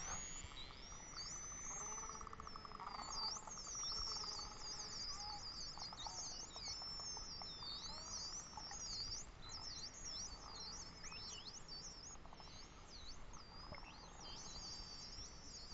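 Common dolphin vocalizations played back slowed down, which lowers their pitch: many quick whistles sweeping up and down, overlapping one another, with a rapid buzzing click train about two to three seconds in.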